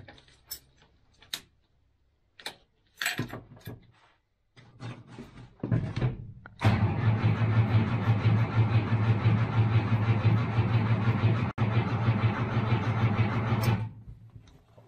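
A few clicks and key jangles at the dashboard. Then the rebuilt starter of a Unimog 404 cranks its petrol inline-six engine with a loud, steady churn for about seven seconds, and the sound cuts off abruptly near the end.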